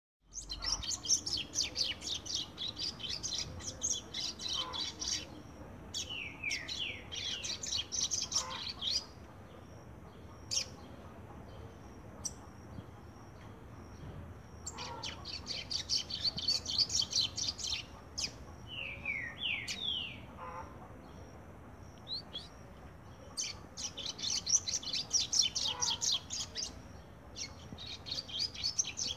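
Male double-collared seedeater (coleiro) singing in its cage: repeated phrases of fast, high trilled notes lasting a few seconds each, with short runs of downward-sliding notes between them.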